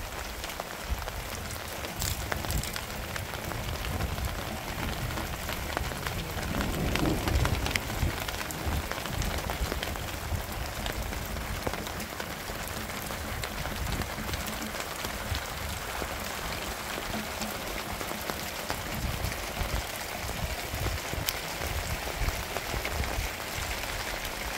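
Steady rain falling on hard surfaces: an even hiss thick with the small ticks of drops. A louder low rumble swells briefly about seven seconds in.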